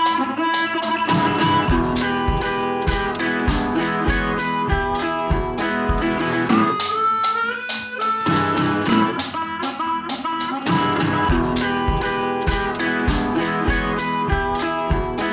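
Background music with a guitar lead over a steady beat, with a sliding note about seven seconds in.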